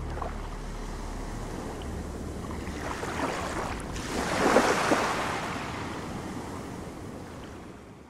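Ocean waves washing, swelling to a louder surge about halfway through and then fading away.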